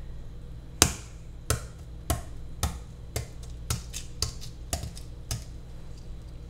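Hard-boiled egg tapped against a granite countertop to crack its shell: about nine sharp taps, roughly two a second, the first the loudest, followed by fainter clicks near the end.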